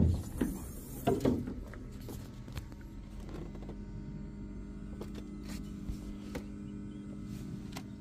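Steady electrical hum from under the bonnet of a 2011 VW Touareg with the ignition on and the engine not cranking. The source of the hum is unknown; it seems to come from between the footwell and the engine. A few knocks and clicks in the first second or so as the bonnet is opened.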